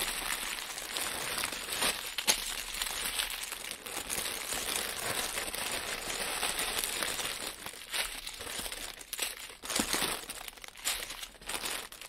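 Clear plastic packaging crackling as hands rummage through a large plastic bag and pull out dozens of small plastic bags of diamond painting drills. The crinkling is steady, with sharp crackles, and breaks up into separate rustles near the end.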